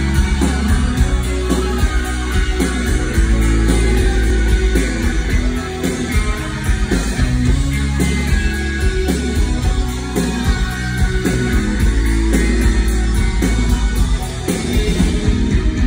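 Live rock band playing an instrumental intro: electric guitar and keyboards over steady drums and a heavy, booming bass, heard from the audience in a concert hall.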